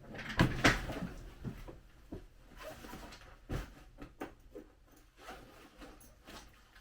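Rummaging about in search of a sheet of paper: a run of knocks and clicks with some rustling, loudest in the first second and thinning out after.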